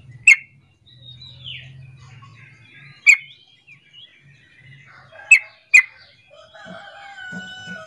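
Yellow-vented bulbul giving short, sharp call notes: four loud ones spaced a few seconds apart, the last two close together, among softer chirps and a downward-sliding note. A longer drawn-out call from another bird starts near the end.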